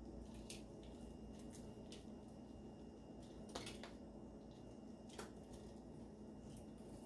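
Near silence over a steady low hum, with a handful of faint, light clicks and rustles, the strongest about halfway: fingers pinching shredded Parmesan from a plastic tub and sprinkling it onto baked saltine crackers on a foil-lined tray.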